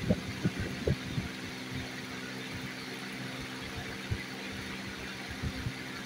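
Dull knocks and taps as a ringneck parakeet pecks and pushes a plastic mobile phone about on a floor mat, a few in the first second, one about four seconds in and more near the end, over a steady low hum.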